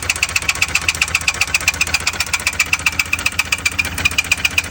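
Four-cylinder car engine running with a heavy, regular knock, about ten knocks a second. The knock comes from a bent connecting rod in the fourth cylinder.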